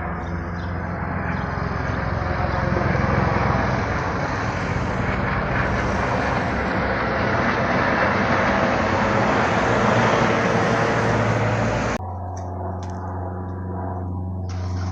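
Low-flying small airplane passing overhead, its engine noise swelling loud, easing slightly and swelling again. Near the end it cuts off abruptly to a quieter, steady engine drone.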